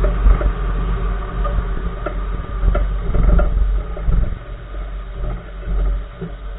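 Low road and tyre rumble from a 2014 Nissan March on the move, with irregular clunks from the right front wheel and suspension, several knocks a few seconds apart; the owner does not know which part is clunking.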